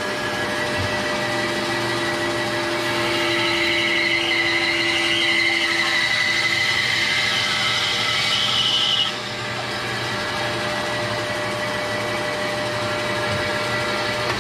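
Bandsaw running and cutting through a dogwood limb. The cutting noise builds from a few seconds in and cuts off abruptly about nine seconds in as the blade comes through the wood, leaving the saw running freely.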